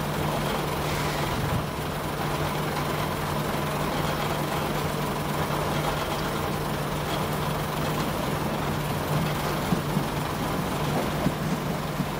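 Steady diesel engine drone of a train at the station. Near the end, a few sharp clicks and more rumble come in as a Chiltern Railways Turbo diesel multiple unit pulls in.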